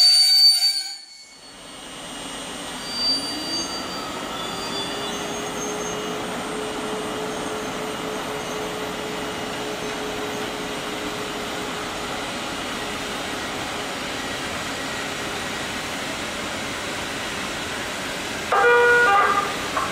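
PKP Intercity passenger coaches rolling along the station track, a steady rumble with a single tone that rises in pitch about three seconds in and then holds. Near the end, the station PA chime sounds.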